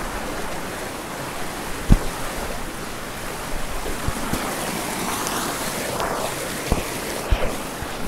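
Rocky stream rushing over boulders in a steady wash of water noise, with a few low thumps: one about two seconds in and two near the end.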